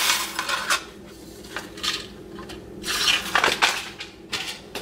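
Kitchen handling sounds: dry onion soup mix rustling as it is shaken from its paper packet into a glass bowl, with a few separate clinks and knocks of dishes and containers on the stone countertop.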